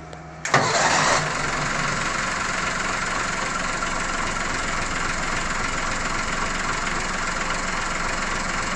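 Starboard inboard engine of a Broom 35 European motor cruiser starting about half a second in, louder for a moment as it catches, then settling into a steady idle.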